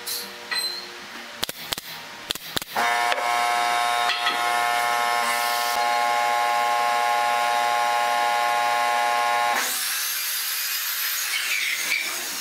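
A few wooden clicks and knocks, then an air compressor's motor runs with a steady hum for about seven seconds and cuts off, followed by a short high hiss as it shuts down.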